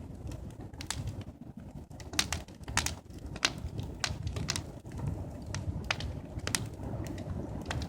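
Fire crackling, with sharp irregular pops a few times a second over a low rumble.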